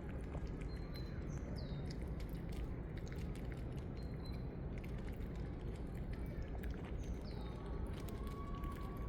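A bird calling with short, high chirps and a falling whistle twice, over a steady low background hum of outdoor ambience.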